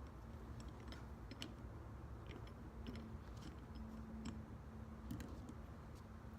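Light, irregular metallic clicks and taps of small caliper parts being handled and fitted while the rear brake caliper's parking brake mechanism is assembled, over a faint steady low hum.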